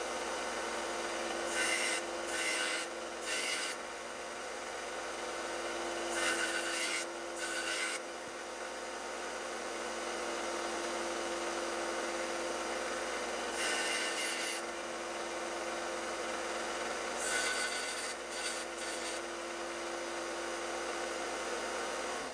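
Electric sander running with a steady hum, broken by four short stretches of grinding as the steel knife blade is pressed to it to reshape a broken tip from the spine down.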